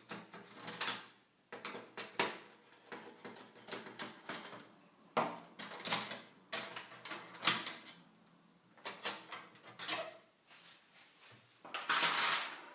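Small clicks, taps and scrapes of metal and plastic parts being handled and worked loose on a PlayStation 3 motherboard, with a louder scrape near the end.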